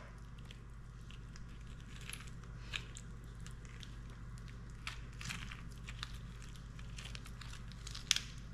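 Faint crackling and scattered clicks of a Florida spiny lobster tail's shell as the raw meat is pulled out of it by hand, with a sharper click near the end, over a steady low hum.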